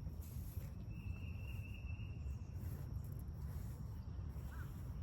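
An insect, cricket-like, trilling at a steady high pitch for about two seconds starting a second in, over a continuous low outdoor rumble.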